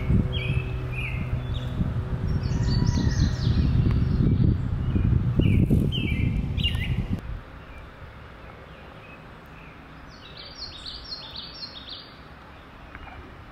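Songbirds singing short, repeated runs of chirps, over a loud low rumble with a steady droning hum that cuts off suddenly about seven seconds in; after that the birdsong goes on over quiet ambience.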